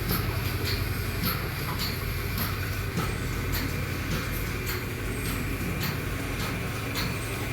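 Milking machine running: a steady low hum from the vacuum pump, with the pulsators ticking about twice a second as the cows are milked.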